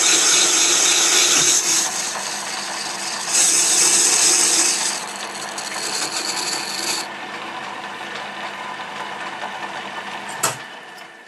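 Lathe tool cutting a cast iron backplate on a 1966 Colchester Bantam lathe: a steady gritty scraping hiss over the running lathe, easing off in steps partway through. A sharp click comes near the end, and the sound then fades.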